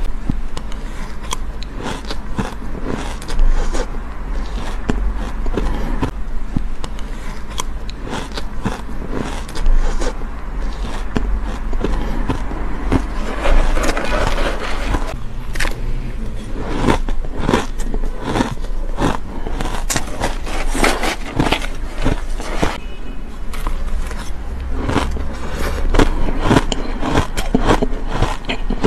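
Close-miked crunching and chewing of granular shaved ice, with a metal spoon scraping and scooping through the ice in a plastic bowl; many sharp, irregular crunches throughout.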